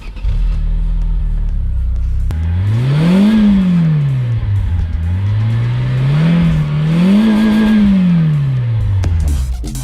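Opel Astra engine idling, then revved twice through its original exhaust and rear silencer. Each rev rises and falls in pitch; the second is held longer, with a brief dip near its top.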